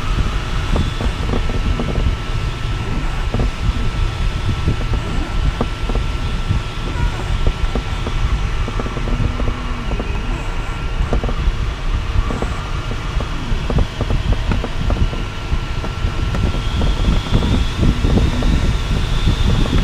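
Steady rush of air over an LS 5 sailplane's canopy and fuselage in gliding flight, heard from inside the cockpit, with an uneven low buffeting rumble. A faint steady high tone runs under it.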